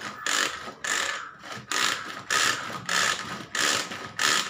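Hand-pull onion chopper being pulled again and again, about seven or eight short ratcheting whirrs in quick succession as the blades spin and chop onion.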